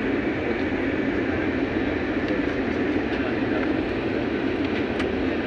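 Steady rumbling noise of an IndiGo airliner during its landing, even in level throughout.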